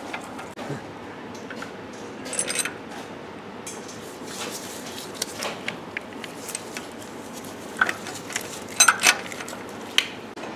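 Light metallic clinks and clicks of a socket wrench and steel bolts as a flywheel holding tool is bolted on, with short clusters of clinks about two and a half seconds in and again near the end.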